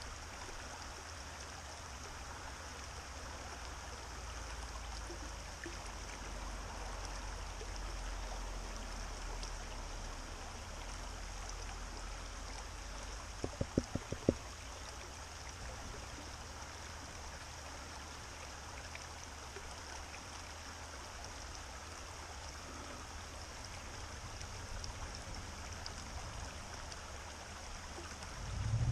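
Shallow creek running steadily over rocks. About halfway through, a quick run of about six sharp taps on the plastic gold pan.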